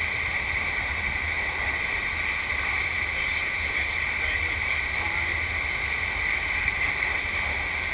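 Steady rushing water of a sheet-wave surf machine pumping a constant flow over its riding surface.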